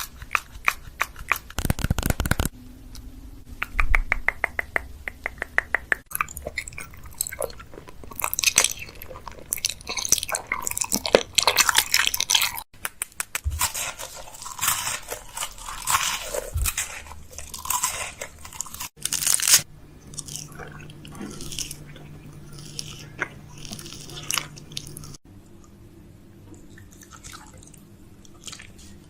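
Crisp crunching and crackling in a run of short clips, including a quick series of evenly spaced clicks about three seconds in.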